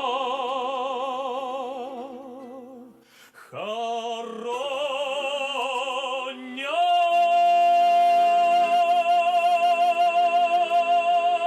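A male folk singer draws out the closing line of a Russian Cossack song in long notes with a wide vibrato, with a short breath about three seconds in. About halfway through he rises into one long held final note over sustained garmon (accordion) chords.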